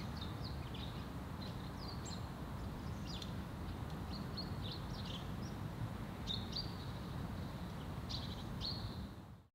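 Small birds chirping: short, high calls scattered throughout, over a steady low background rumble. The sound fades out near the end.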